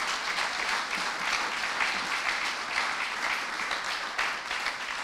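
Audience applauding, many people clapping steadily together.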